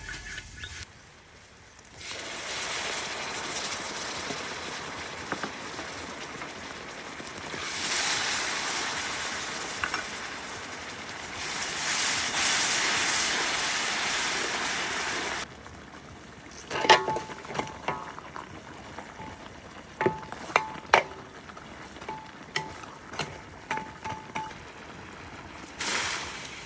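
Kitchen cooking sounds: a steady hiss that swells louder twice and then stops abruptly, followed by a run of sharp clinks and taps of utensils on cookware, some of them ringing.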